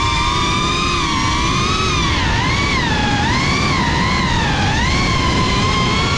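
Drone's electric motors and propellers whining, heard from its onboard camera. The pitch rises and falls every second or so as the throttle changes in banking turns, over a steady rush of wind.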